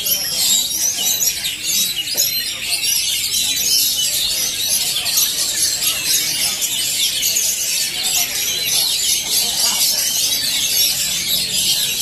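A dense, unbroken chorus of many caged kacer (Oriental magpie-robins) singing at once, a mass of high chirps and whistles overlapping.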